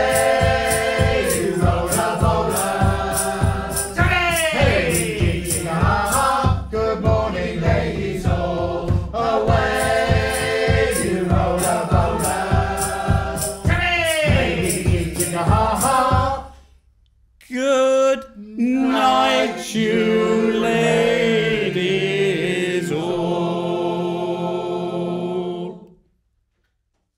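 Mixed group of voices singing a sea shanty with flute, over a steady beat of about two strokes a second. The beat stops about sixteen seconds in; after a brief break the singers hold long closing chords and stop near the end.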